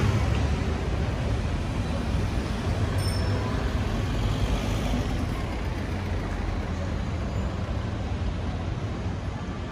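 City street traffic: the rumble and tyre noise of passing cars, slowly fading.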